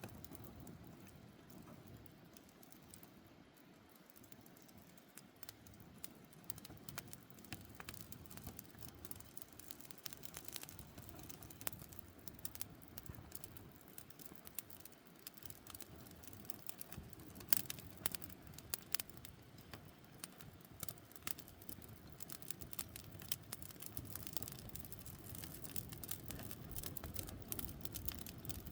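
Campfire crackling as it catches: irregular sharp snaps and pops of burning wood over a low steady rush. The crackles come thicker and louder in the second half.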